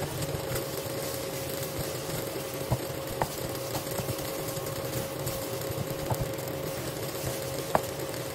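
Fried rice sizzling in a wok while a wooden spatula stirs and scrapes it, with a few sharp taps of the spatula against the pan. A steady hum runs underneath.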